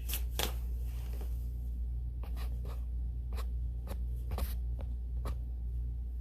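Light scratching and clicking handling noises, short sharp strokes scattered irregularly, over a steady low hum.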